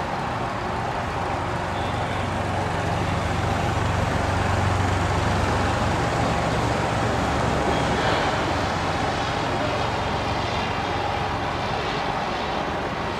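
Westland Lysander's Bristol Mercury nine-cylinder radial engine running steadily in flight. It grows a little louder through the middle, then eases off.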